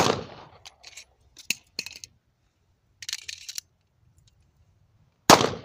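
A pistol shot: one loud, sharp report that dies away over about half a second, followed by a few light clicks and a brief rattle of handling about three seconds in. A second sharp report comes near the end.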